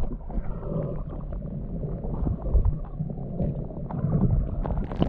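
Muffled underwater sound of a gloved hand fanning a river's gravel bed: a low churning of moving water with many small ticks of pebbles and grit knocking together.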